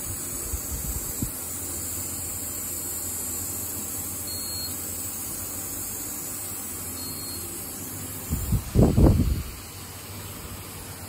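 Wheel balancer spinning a tyre and wheel, a steady hum with hiss. About eight seconds in come several loud low thumps, and then the hum dies away as the wheel comes to rest.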